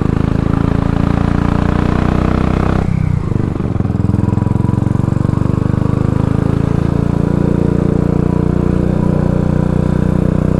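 Royal Enfield Classic 500's single-cylinder engine running on the road, dipping briefly about three seconds in and then pulling on steadily.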